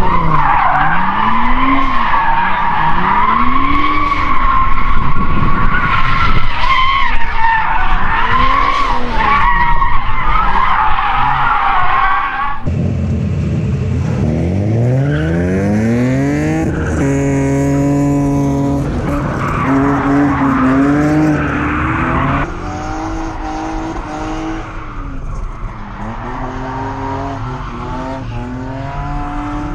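Drift car sliding through a corner, its tyres squealing in a long wavering screech while the engine revs rise and fall. After a cut about 13 s in, a car engine revs up sharply and then holds high revs. Near the end it runs on at varying revs, heard from inside the car.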